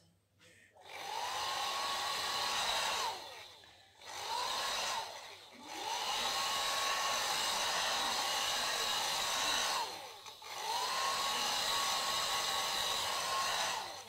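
Small handheld hair dryer switched on and off four times. Each run is a steady blowing hiss with a motor whine that rises as it spins up and falls as it winds down.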